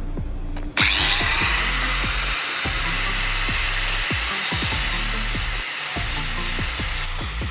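A power tool starts abruptly about a second in and runs steadily with a loud, even hiss, over background music.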